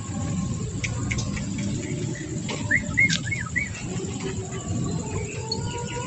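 Small songbirds chirping: scattered single chirps, with a quick run of about five short arched chirps about three seconds in.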